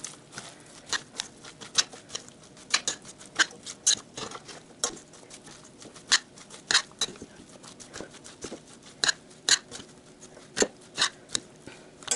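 A spoon stirring chopped vegetables and salt in a large stainless-steel pot. It makes irregular sharp clicks and taps against the pot, about two a second, over the soft rustle of the wet mix.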